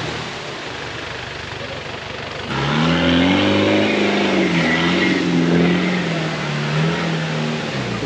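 Modified off-road jeep's engine revving hard as it drives through a river crossing, over a rushing noise of churned water. From about two and a half seconds in the engine is louder and clearer, its pitch rising and falling with the throttle.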